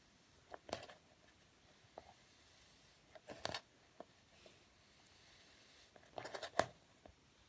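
Kinetic sand being handled, giving three short bursts of soft crackling about three seconds apart, with a few light ticks between.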